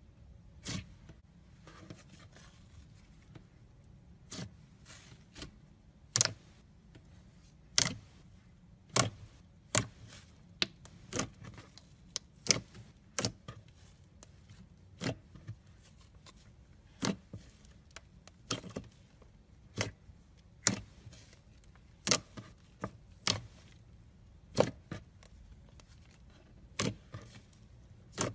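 Slime being handled, giving short sharp pops and clicks at irregular intervals, about one a second.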